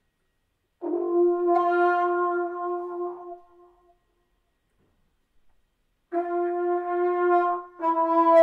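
Background music: an electric trombone plays long held notes, one of about three seconds, then after a pause of about two seconds two more in a row, the second slightly lower.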